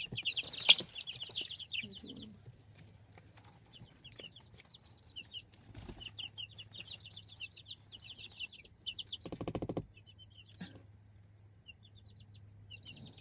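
Two-week-old chicks peeping, runs of rapid high chirps with quieter gaps between. A sharp knock comes under a second in, and a short low buzz about nine and a half seconds in.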